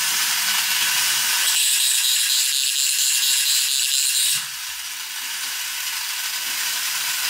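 1980s battery-powered robot toy's small electric motor and gear train running, a steady mechanical whirring and gear chatter. It changes about a second and a half in and gets quieter about four and a half seconds in. The mechanism is working normally after repair.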